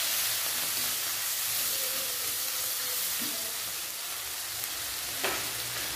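Coarsely ground chili paste frying in oil in a nonstick wok over medium-low heat: a steady sizzling hiss while it is stirred with a spatula.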